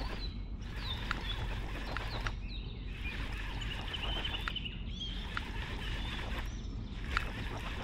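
Birds chirping and singing around the water over a steady low outdoor rumble, with a few sharp faint clicks scattered through.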